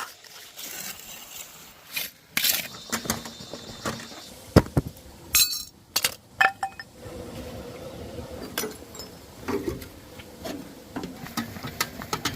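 Irregular clinks and knocks of hard objects being handled, several sharp strikes loudest in the first half, then softer scattered knocks and rustling.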